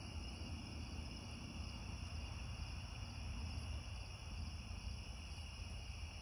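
Steady chorus of crickets and other night insects, several high-pitched trills held at once, over a low rumble.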